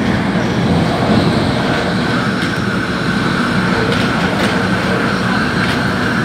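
Hong Kong MTR train running at speed, heard inside the carriage: a steady rumble of wheels on rails and car body. A steady high whine comes in about two seconds in, with a few light clicks.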